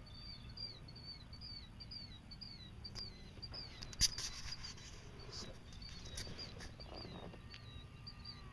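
A bird calling outdoors, repeating a short high chirp two or three times a second. A sharp click about halfway through is the loudest sound, followed by a few softer clicks.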